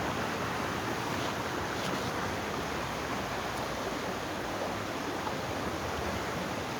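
River water rushing steadily, an even wash of flowing-water noise.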